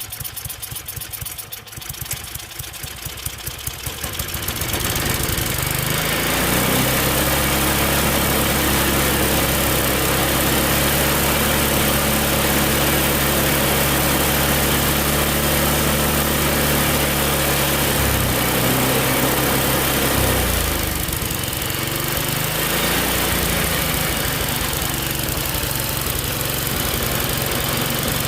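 Tecumseh snowblower engine starting, sputtering unevenly for a few seconds before it catches about five seconds in and runs at a steady high speed. Around 18 to 21 seconds its speed drops and it settles to a lower but still fast run: it revs high and won't come down further, which the owner suspects is a governor spring problem.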